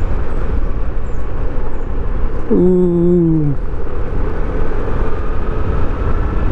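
Riding noise on a moving motor scooter: steady wind buffeting and road rumble, with a short tone that drops in pitch about two and a half seconds in.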